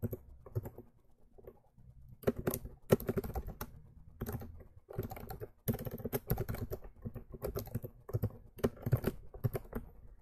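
Typing on a computer keyboard: quick runs of key clicks in bursts, with a short pause about a second in.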